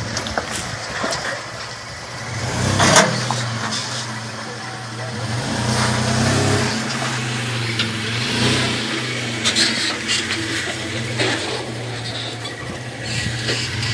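Toyota 4Runner's engine running at low revs as it crawls over concrete pipes and rocks, the revs rising briefly about six seconds in and again a little later as throttle is fed in. A sharp knock sounds about three seconds in, with a few lighter knocks later on.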